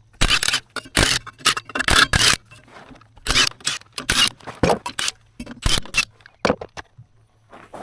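1/2-inch Milwaukee impact wrench spinning lug nuts off a trailer wheel in a string of short bursts.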